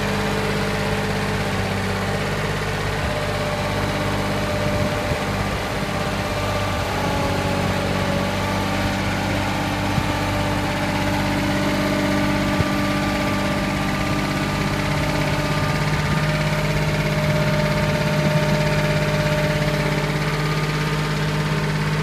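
Thomas 85 skid steer loader's engine running steadily as the machine is driven, its pitch shifting a little now and then.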